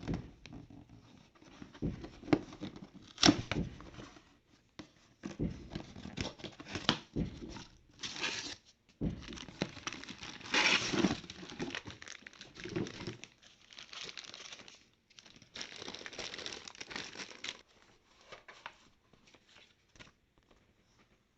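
Packaging being opened by hand: tearing and crinkling, with scattered sharp knocks and clicks. The handling thins out near the end.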